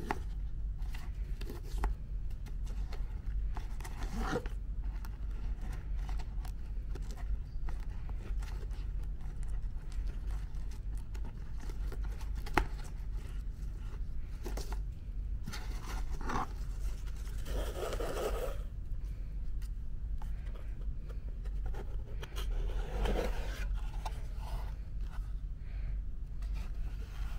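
Paper packaging being handled and opened: scattered scrapes, rustles and light clicks, with a few louder rustles spread through and one sharp tap about halfway, over a steady low hum.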